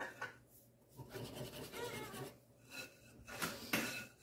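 Wire whisk stirring flour into thick batter in a mixing bowl: uneven scraping and rubbing strokes, with a couple of sharp clicks near the end as the whisk knocks the bowl.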